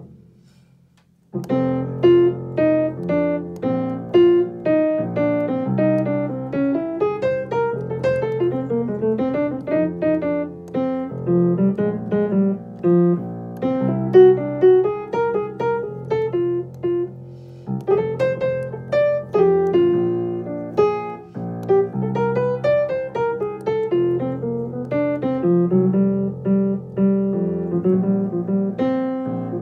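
Yamaha piano playing an improvised single-note melody line over held lower notes. It starts about a second and a half in, after a short pause.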